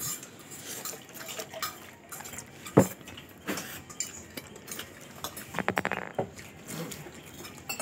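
Eating noodles from a plate: fork and spoon clinking and scraping against the plate, with a sharp clink about three seconds in, and noodles being slurped into the mouth in a quick rattling run near six seconds.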